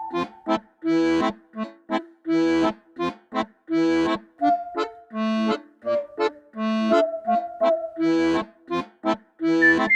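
Background music with a steady beat of struck chords under a held melody line.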